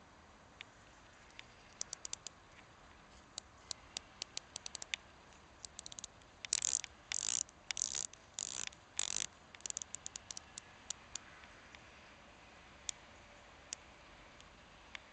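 Rotating bezel of a San Martin Iceball dive watch being turned by hand, ratcheting in runs of sharp clicks, with a few louder bursts of rapid clicking about halfway through.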